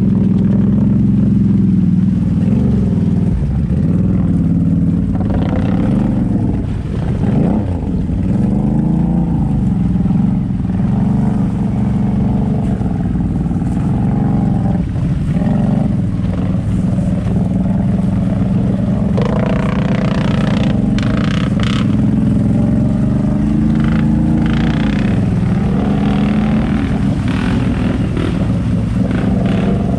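ATV engine revving hard as the quad is driven through deep mud and water, its pitch rising and falling with the throttle, with a short drop in revs about seven seconds in.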